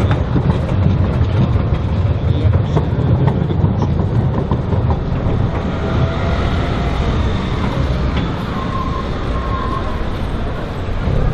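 Siemens Combino trams passing at close range: a steady low rumble of wheels on rail with scattered clicks over the track joints and switches, easing after about six seconds. Later come a few faint, brief high squeals from the wheels on the curved track.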